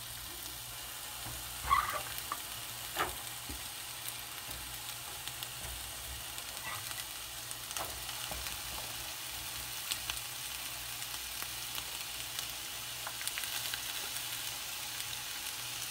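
Chopped red onion frying in hot oil in a nonstick pan: a steady, fairly quiet sizzling hiss, with a few light clicks as it is stirred.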